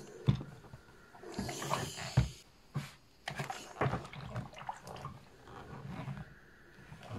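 Clothes being ironed with a Moulinex steam iron: the iron knocks down onto the board several times, sharpest about a third of a second and two seconds in, while fabric rustles as garments are laid out and moved. A short hiss comes about a second and a half in.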